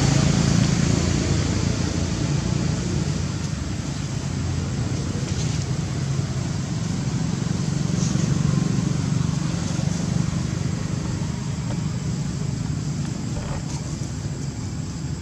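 Steady low rumble of motor-vehicle engines, swelling and fading slowly as traffic passes.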